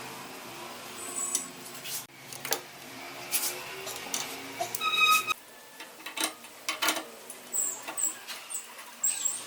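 Irregular clicks and knocks of hand work with tools and parts, with one brief metallic ring about five seconds in.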